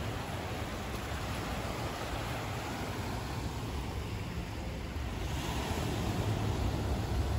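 Wind buffeting the microphone over a steady wash of small waves breaking on the shore. The wind grows a little stronger about five seconds in.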